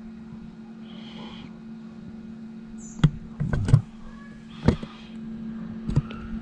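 A steady low hum from the running Macintosh SE setup, with a cluster of sharp clicks and clunks about halfway through and a couple of single knocks after it, from the external floppy drive and its disk being handled.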